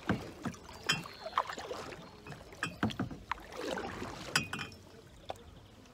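Canoe paddling: the paddle dipping and pulling through the water in irregular strokes, with small splashes and a few sharp knocks.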